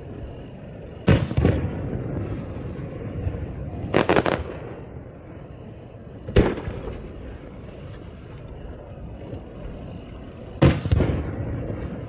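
Firework shells bursting: four loud bangs a few seconds apart, some doubled, each followed by a rolling, echoing rumble.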